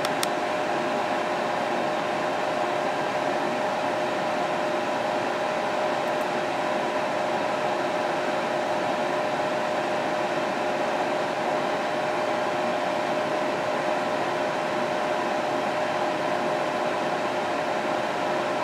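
Steady whir of a water-cooled PC's cooling: two San Ace 3,000 rpm radiator fans and a D5 pump running, with a steady humming tone through the whir.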